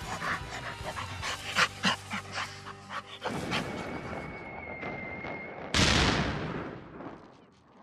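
A dog panting, with quick short sounds over the first few seconds. About six seconds in there is a loud rushing burst of noise that fades away over a second or so.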